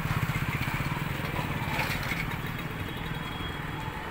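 An engine idling steadily nearby with a fast, low chugging pulse.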